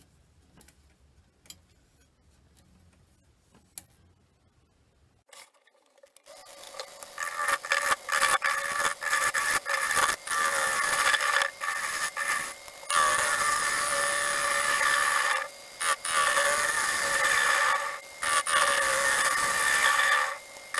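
A turning gouge cutting a spinning pine-and-plywood bowl blank on a wood lathe: a loud scraping hiss with a steady whine in it, starting about six seconds in after a few quiet clicks. It drops out briefly several times as the tool comes off the wood.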